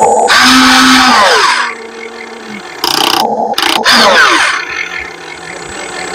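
A machine motor running in short bursts that start and stop abruptly, its whine falling in pitch about a second in and sweeping up and down again around the middle.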